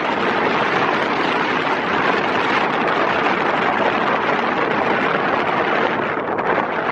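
Steady rushing noise of an Airbus A320neo's jet engines as it arrives.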